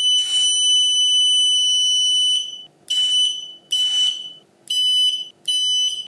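High-pitched electronic buzzer on the digital meter sounding as the hall effect proximity sensor switches: one long steady tone of about two and a half seconds, then short beeps at the same pitch about once a second. With the meter on its own battery supply, the buzzer sounds only when the sensor triggers instead of staying on all the time.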